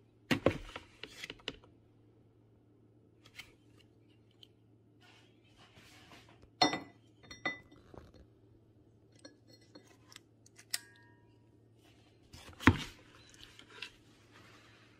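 A stainless squeeze-handle ice cream scoop scraping and packing icy frozen orange sorbet in a plastic food-processor bowl, its spring-loaded release lever clicking. Scattered sharp knocks and clicks, the loudest near the start, about halfway and near the end.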